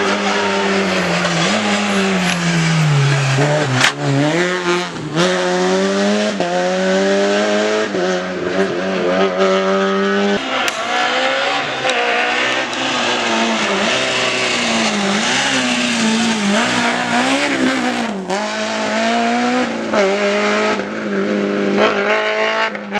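Rally car engine revving hard, its pitch climbing and dropping again and again through gear changes and braking, with a few sharp cracks along the way.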